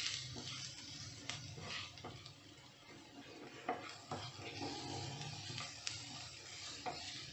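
Wooden spatula stirring sautéed onions and ground spices in a non-stick frying pan, with soft sizzling and occasional light scrapes and taps of the spatula against the pan.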